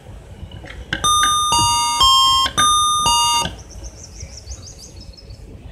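Electronic chime playing a short tune of five sustained notes that step down and up in pitch, lasting about two and a half seconds.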